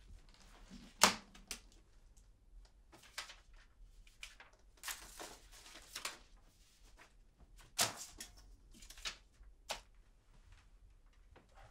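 A leather briefcase and its papers being handled: scattered clicks and knocks, the loudest about a second in, with rustling around the middle and a few more clicks near the end.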